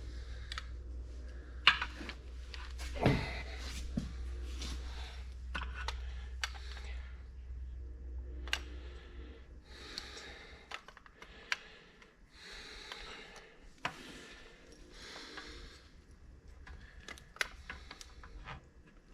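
Hand work on tractor parts: scattered sharp metal clinks and knocks of tools and bolts, with rustling in between, over a low hum that fades out about halfway through.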